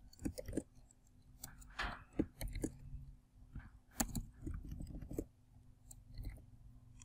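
Computer keyboard typing: quiet, irregular keystroke clicks.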